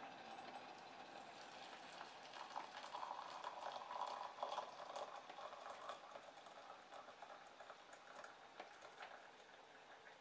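Faint crackling, fizzing hiss of just-boiled water, louder in the middle and fading towards the end.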